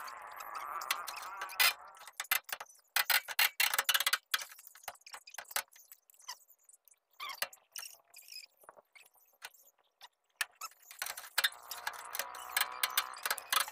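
Metal hand tools clicking and clinking against a steering tie rod as a replacement tie rod end is fitted. The sharp clicks come irregularly, with a denser continuous rattle at the start and again near the end.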